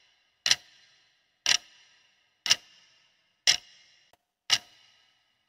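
Clock-tick sound effect marking a countdown timer, one sharp tick each second with a short ringing tail, counting down the seconds left to answer.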